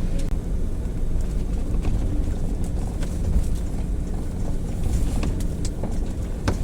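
Car engine running at a steady low rumble, heard from inside the car, with a sharp click near the end.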